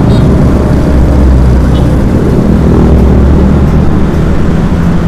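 Road vehicle on the move: a steady, loud low rumble of engine and road noise, with a faint engine hum above it.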